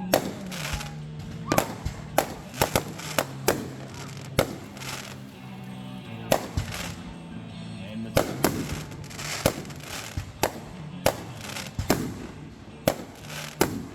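Fireworks going off: about twenty sharp bangs at irregular intervals, some followed by a short crackling hiss, with music playing underneath.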